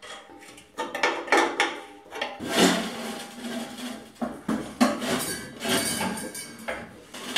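Irregular metallic clinks and clanks of steel axle parts and mounting hardware being handled and bolted onto the compressor tank's feet, some with a short ring.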